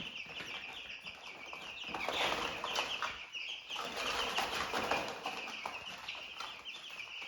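A brood of young poultry chicks peeping continuously in quick short chirps, with two louder swells of wing flapping and rustling, about two seconds in and again around the fourth and fifth seconds.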